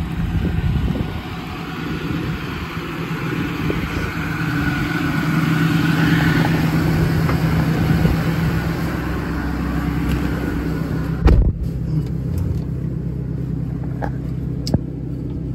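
A Ram 5500's 6.7 Cummins diesel running steadily. About eleven seconds in, a single heavy thump, after which the engine sounds muffled, as from inside the closed cab.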